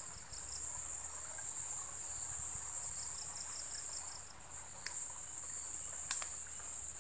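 A steady, high-pitched insect chorus from the swamp, with short runs of rapid pulsed chirps. Two sharp clicks stand out near the end.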